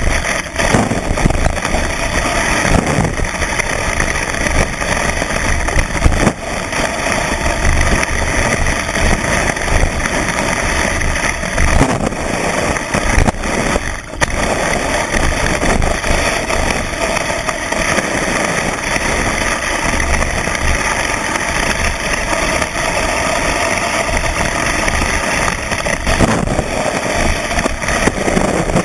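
Skis running fast over packed snow, picked up through a camera mounted on the ski itself: a loud, continuous rushing rumble that rises and falls unevenly with the snow surface, with occasional knocks.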